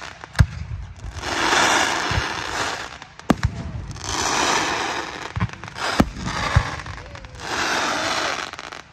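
Aerial fireworks display: sharp bangs of shells bursting, with waves of crackling lasting a second or two after them, three times, and a few duller low thumps in between.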